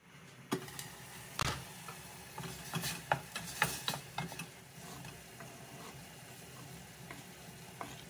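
Irregular clicks and knocks of objects being handled, densest in the first half, over a steady low hiss that starts suddenly.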